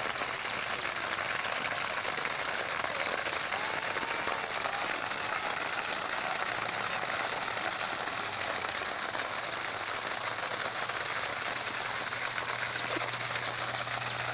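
Water pouring steadily out of a sump pump discharge hose while two pumps empty a 55-gallon tank. A low hum comes in about six seconds in and grows louder near the end, and a bird chirps briefly.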